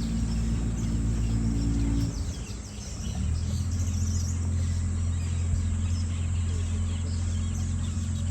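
Birds and insects chirping in tropical rainforest over a steady low hum. The hum drops out about two seconds in and comes back about a second later at a different pitch.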